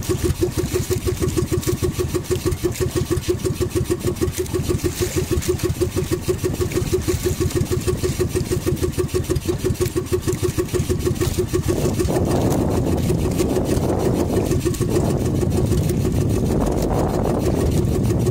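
Small outrigger boat's engine running with a steady putter of about five beats a second; about twelve seconds in the beat gives way to a louder, even rush of engine and water noise.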